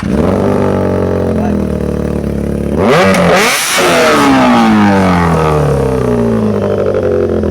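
Vehicle engine running at a steady idle just after starting. About three seconds in it is revved hard once, and the pitch then sinks slowly back down over the next few seconds.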